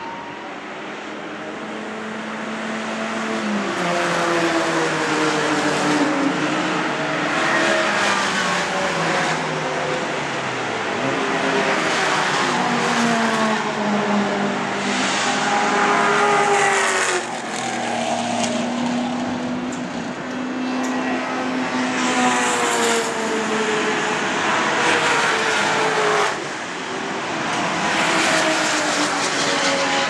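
Several track-day cars running past on a racing circuit one after another, their engines revving up through the gears and dropping in pitch as each goes by, often two at once, with the sound swelling and fading as each car passes.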